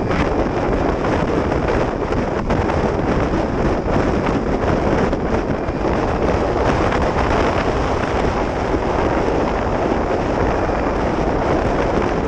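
Steady wind rush buffeting a chest-mounted camera's microphone while riding a 2013 Kawasaki Ninja 300 at road speed, with the motorcycle's engine running underneath.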